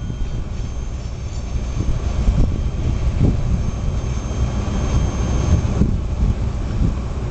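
Tail end of a freight train of loaded centerbeam lumber cars rolling past and away: a steady low rumble with irregular thumps.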